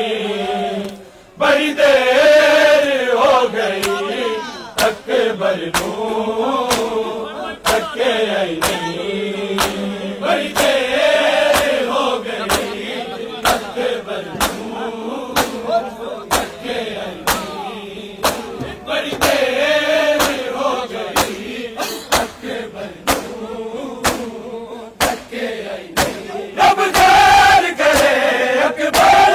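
Noha (Shia lament) chanted by a group of men in unison, with the crowd beating their chests in time: sharp slaps at about one and a half a second under the singing.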